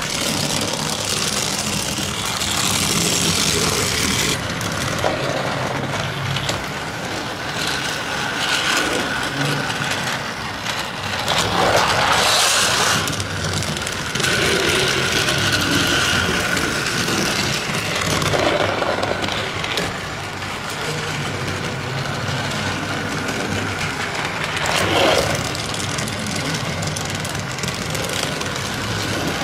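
Battery-powered toy buses and cars running along plastic track sets: small electric motors whining steadily with plastic rattling, and louder clattering about twelve and twenty-five seconds in.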